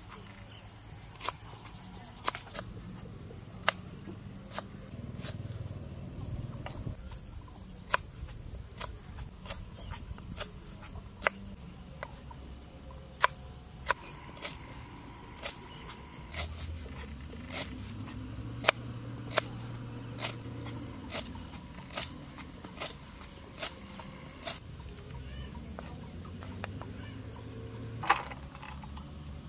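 Kitchen knife slicing lemongrass stalks on a wooden chopping board: sharp knocks of the blade hitting the wood, about one a second.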